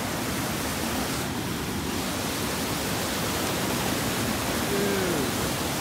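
Swollen, fast floodwater rushing and churning through a concrete spillway channel: a steady, loud rush of white water.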